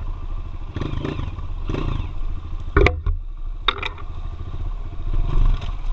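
Single-cylinder trail motorcycle engine running at low revs, a steady low rumble, with two sharp knocks near the middle.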